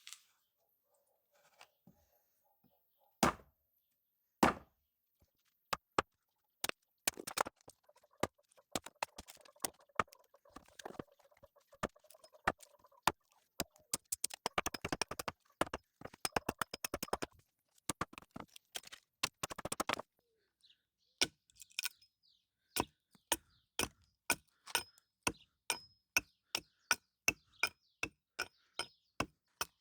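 Repeated sharp strikes of a hand tool: a few widely spaced blows, then a fast flurry of many strikes, then a steady run of about two blows a second.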